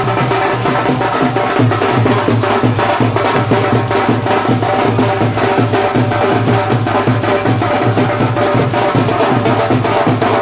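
Loud music with a fast, steady drumbeat over a heavy bass line.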